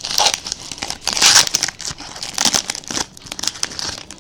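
Plastic wrapping crinkling and rustling in irregular bursts as trading-card packaging is torn open and the cards handled, the loudest rustle about a second in.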